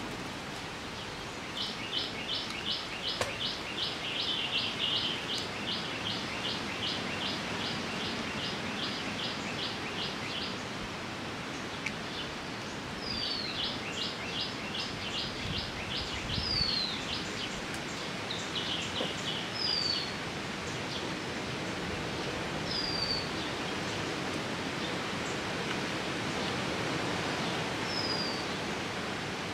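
A bird calling over a steady outdoor hiss: a fast run of high repeated notes, about three a second, for the first ten seconds or so, then single high down-slurred notes every few seconds, some followed by short repeated runs.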